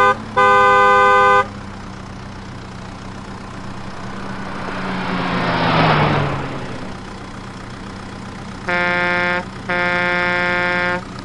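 Vehicle horn honking twice at the start, the second honk longer, over a steady low engine hum. Midway a vehicle passes by: its rushing sound swells and fades away as its pitch falls. Near the end the horn honks twice more, the second honk longer.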